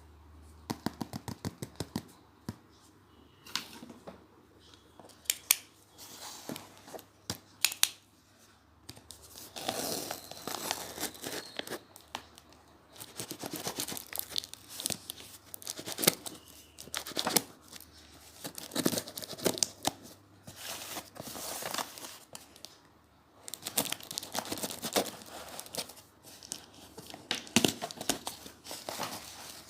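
Packaging being unboxed close up: paper and tape tearing and crinkling, mixed with sharp clicks and taps from handling, in bursts with short pauses between.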